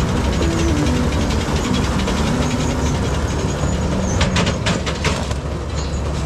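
Tractor engine running steadily with a low rumble, with background music over it in the first half. A few short clattering knocks come about four to five seconds in.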